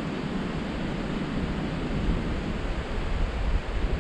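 Steady rushing noise of wind and breaking ocean surf, with gusty rumbling low down.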